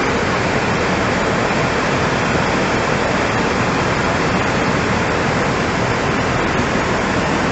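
Rushing flash-flood water, a loud steady roar of fast-flowing water.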